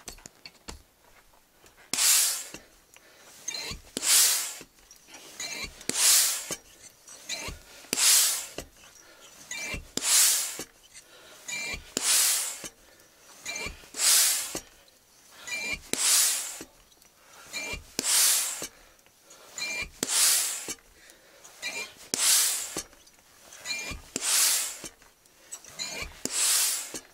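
FX three-stage high-pressure hand pump being worked steadily: a loud rush of air on each stroke, about one every two seconds, with quieter sounds on each return stroke. It is charging an HW100 air rifle's cylinder from empty and is nearing full pressure.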